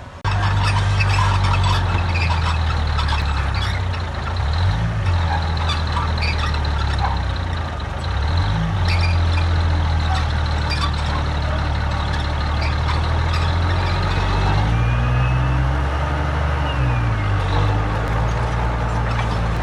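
Heavy diesel engine of construction equipment running under load, cutting in abruptly at the start. Its engine speed rises and falls several times, with clanking and rattling over it.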